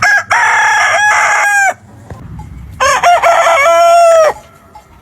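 Rooster crowing twice, each crow about a second and a half long, the second a little lower in pitch than the first.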